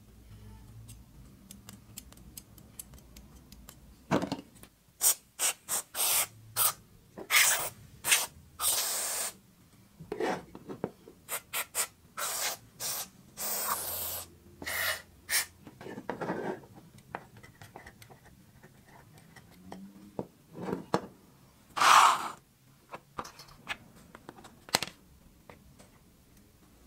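Aerosol spray can sprayed through a thin straw nozzle onto a rusted revolver, in many short hissing bursts with a few longer ones, soaking the rusted parts.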